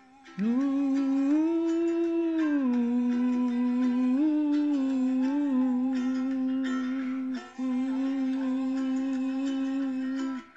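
A man singing long, drawn-out notes with a short break about two-thirds of the way through, over a faint plucked-string accompaniment.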